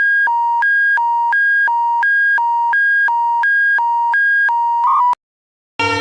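Emergency alert alarm played backwards: two beeping tones, one high and one low, alternating about every third of a second. They cut off abruptly about five seconds in, and after a short silence a harsh buzzing tone begins, sliding slowly down in pitch.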